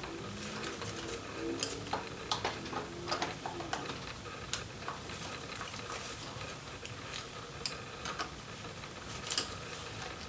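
Faint, scattered metallic clicks and light taps of hand work on a motorcycle clutch slave cylinder and its mounting bolts, with an Allen key handled among the parts.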